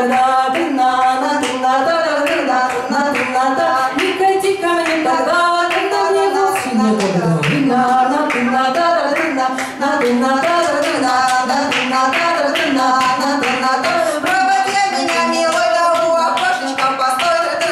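Women's voices singing a Russian folk-style song, accompanied by rhythmic hand claps keeping a steady beat. About seven seconds in, the voice slides down to a low note.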